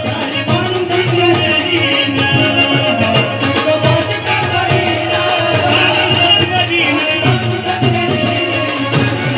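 Live folk-devotional song played through a PA system, with a two-headed barrel drum beating a steady rhythm under a keyboard melody and a male singing voice.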